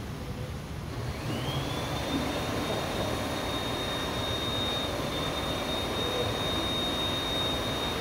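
A motor with rushing air: about a second in, a whine rises and settles into a steady high whine over a continuous rushing hiss, as a blower or fan motor spins up and runs.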